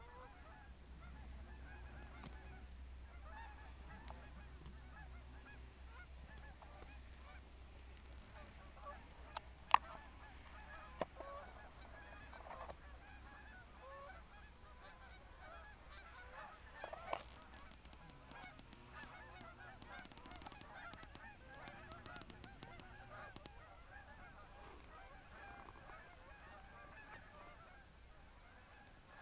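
A large flock of snow geese calling, a dense chorus of overlapping high honks that never lets up. A few sharp clicks stand out around the middle, the loudest about ten seconds in.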